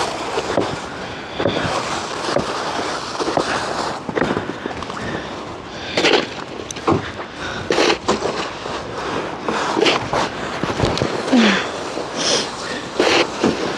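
Irregular crunching and scraping in snow: short, noisy strokes of uneven spacing, heaviest in the second half.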